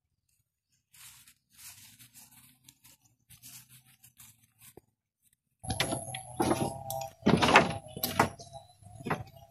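Footsteps thudding on the wooden floor of a thatched hut: about five heavy knocking steps in the second half, the loudest a little past the middle, after a stretch of faint rustling.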